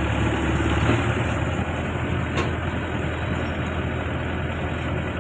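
Heavy diesel engine running steadily at low revs, with a single short click about halfway through.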